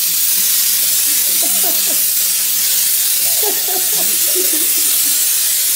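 Handheld pump-up pressure sprayer giving a continuous loud hiss as it sprays a fine jet of used motor oil.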